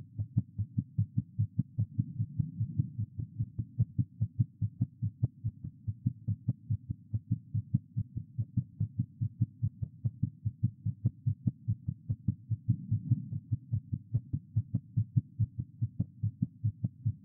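A woman's heart beating very fast, heard through a stethoscope: a steady, rapid run of low lub-dub thumps.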